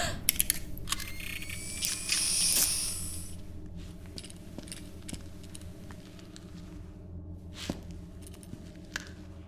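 Low steady hum with scattered small clicks, ticks and scrapes, busiest in the first three seconds, where a faint rising whine climbs in pitch.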